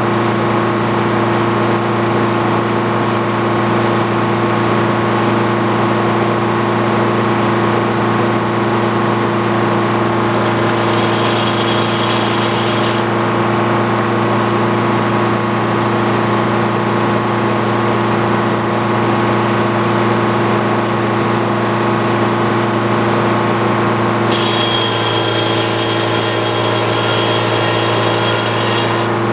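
A machine's motor or engine running at a steady speed, with a thin high whine joining in briefly about eleven seconds in and again near the end.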